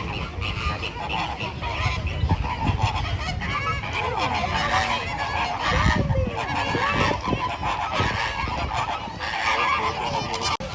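A flock of flamingos honking, with many goose-like calls overlapping.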